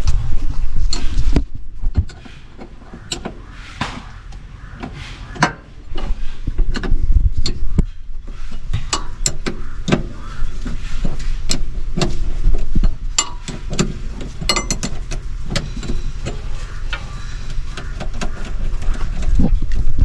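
Scattered metallic clinks and knocks of hand tools and parts being worked in a skid steer's engine bay, over a low rumble. It drops quieter for a few seconds about two seconds in, then the knocks come thicker.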